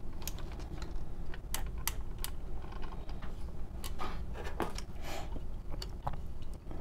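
Plastic parts and ratcheting joints of a Maketoys Howling Meteor transforming robot figure clicking and snapping as it is handled, in scattered sharp clicks over a low steady hum.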